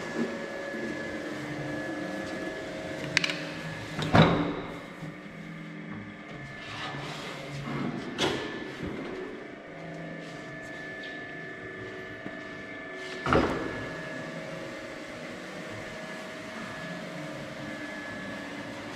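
LIMA SUS pipe seaming machine running as its motorised carriage seams a round metal pipe, with a steady motor hum and whine. Several loud metal clunks break in, the loudest about four seconds in.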